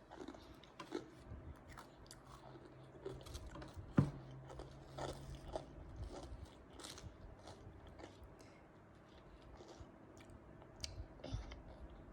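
Close-up chewing and crunching of chocolate-coated puffed rice with nuts: irregular small crisp crunches and clicks, with a single sharp click about four seconds in.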